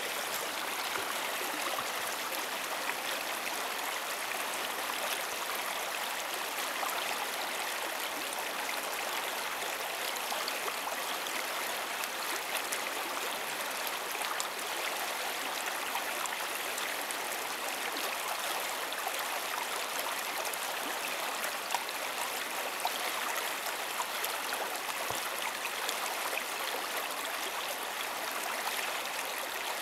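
River water flowing and rushing steadily, a constant even hiss with no change throughout.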